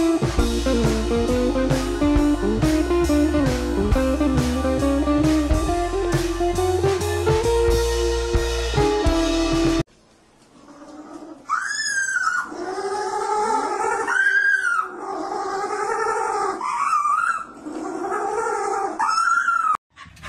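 Guitar music with a drum beat, which cuts off sharply about ten seconds in. Then a small penguin calls several times over the next eight seconds, each call arching up and then down in pitch.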